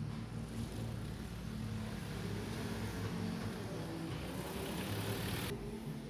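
A car running along the street, its engine hum steady and its road noise growing louder before stopping suddenly near the end.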